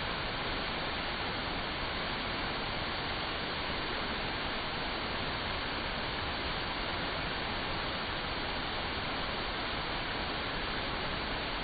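Water falling steadily over an artificial waterfall: a continuous, even rush.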